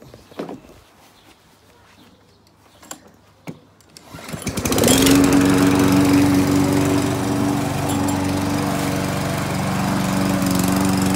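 Petrol walk-behind rotary lawnmower engine starting about four seconds in, quickly coming up to speed and then running steadily.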